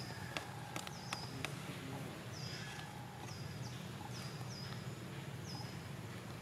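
Short, high-pitched animal calls, each dropping quickly in pitch and then holding, repeating about once a second over a steady low hum, with a few faint clicks in the first second and a half.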